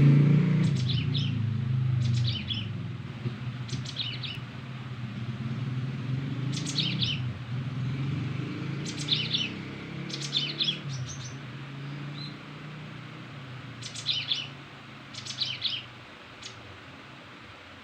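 White-rumped shama (murai batu) singing: short, quick, high chirping phrases repeated every second or two. A low steady rumble runs under the song for the first half, then fades away.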